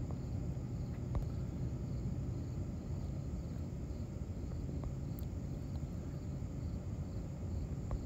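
Steady low background rumble with a few faint short clicks.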